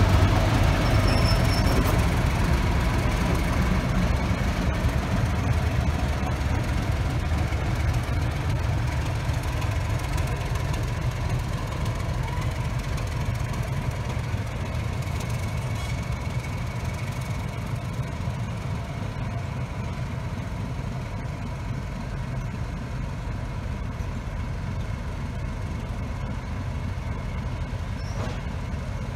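Class 31 diesel locomotive's English Electric V12 engine running as the locomotive pulls slowly away along the track, its deep engine note gradually fading with distance.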